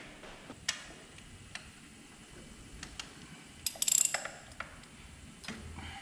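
Ratchet wrench clicking in short spells, with scattered metal clicks and taps, while spark plugs are being loosened from a car engine. The loudest run of clicks comes about four seconds in.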